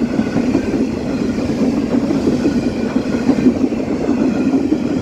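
Empty intermodal container flat wagons of a freight train running past close by at speed: steady, loud wheel-on-rail noise.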